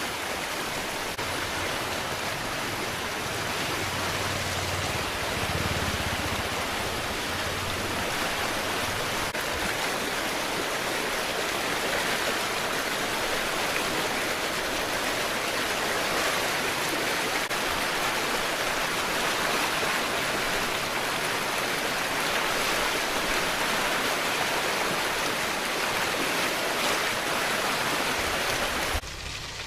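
Steady rush of fast-flowing floodwater, which cuts off abruptly near the end.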